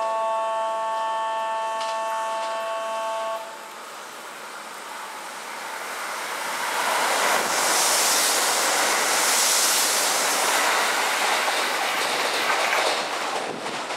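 Out-of-service Kintetsu electric train sounding its horn, one steady chord held for about three and a half seconds. It then passes through the station without stopping. Its running noise builds to a loud rush with a high hiss and eases near the end.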